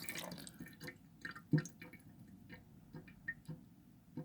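Water dripping and trickling in a miniature toilet bowl just after a flush: scattered separate drops, the loudest about a second and a half in. The bowl gives no clear siphon gurgle.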